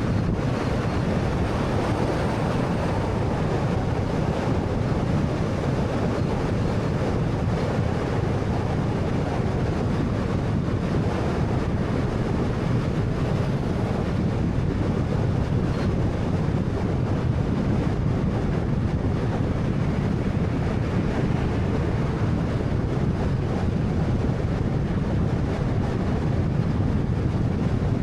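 Steady road and tyre noise with a low engine hum from a car driving along at a constant pace.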